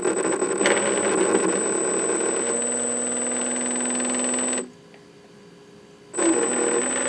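2750 kV brushless motor on a 60 A ESC spinning briefly at light throttle, out of the water, with a high steady whine over the motor's hum. It runs about four and a half seconds, stops, then spins up again near the end. It runs smoothly, the new speed controller driving it fine.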